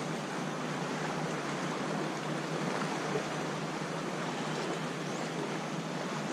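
Steady wash of small sea waves lapping, with a faint click about three seconds in.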